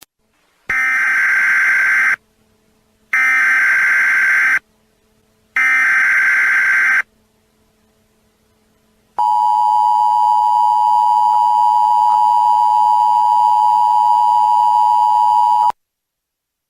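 Emergency Alert System tones: three short bursts of warbling SAME header data, each about a second and a half long with a brief gap between, then the two-tone attention signal, a steady shrill dual tone held for about six and a half seconds that cuts off abruptly.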